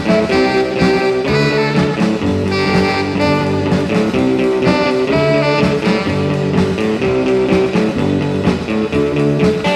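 Instrumental music with guitar and a steady beat: the slideshow's oldies rock-and-roll soundtrack.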